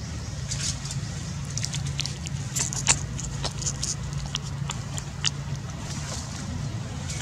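Steady low hum with scattered short clicks and crackles, the sharpest about three seconds in.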